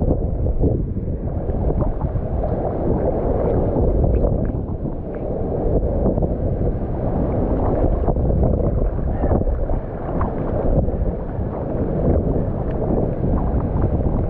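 Storm wind buffeting the microphone in a dense, uneven rumble, with lake water sloshing and gurgling close by.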